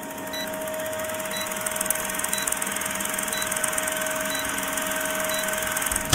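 Film-projector countdown sound effect: the fast, steady clatter and whirr of an old film projector with a steady hum-like tone, and a short tick once a second marking the count.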